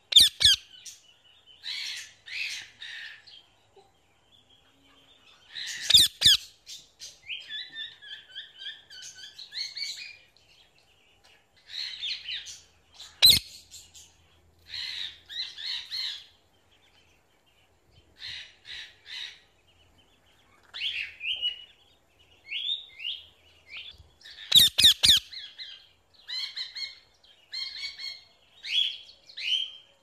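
Parrots calling: a steady run of short chirps and whistled notes, broken several times by loud, harsh squawks.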